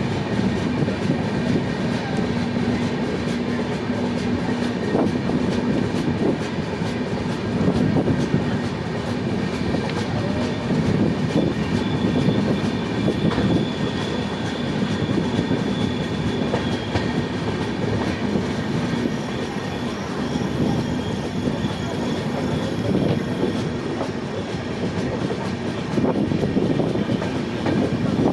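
Express passenger train running along the track: a steady rumble and rattle of wheels over the rails, with irregular knocks. A faint high whine rises out of it for several seconds in the middle.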